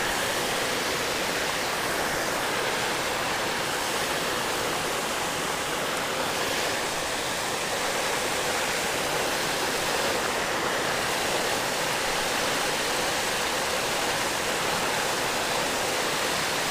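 A small creek waterfall: water pouring steadily through the gaps of a low concrete-block weir, a constant rush of water.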